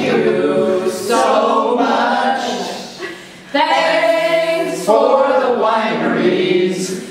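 A small group of men and women singing together unaccompanied, in sung phrases with a short break a little over three seconds in.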